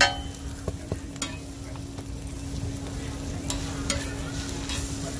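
Egg-and-vegetable omelette and bread slices sizzling on a flat steel griddle, with a steady low hum underneath. A metal spatula clicks and scrapes against the plate several times, sharpest right at the start.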